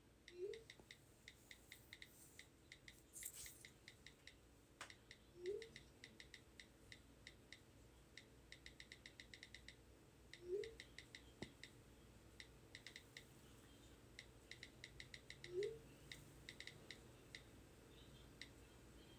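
Faint phone keyboard clicks, coming in quick bursts as a text message is typed. A short, low rising chirp repeats about every five seconds and is louder than the clicks.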